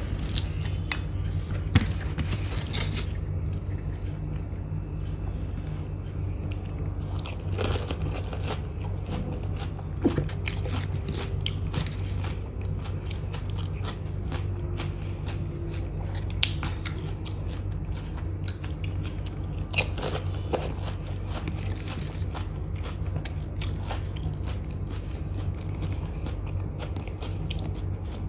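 Close-miked eating sounds: crisp puri shells crunching as they are bitten, then wet chewing, with a steady low hum underneath. Near the start a spoon scrapes a foil-lined paper plate.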